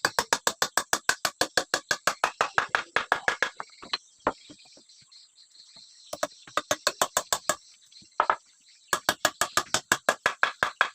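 Rapid sharp taps, about seven a second, in three runs with short pauses between, typical of a hammer tapping on wood while a timber frame is fitted together.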